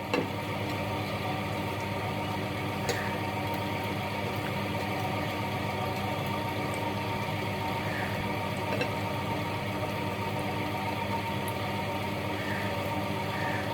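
A steady mechanical hum with a buzz, unchanging throughout, with a few faint clicks.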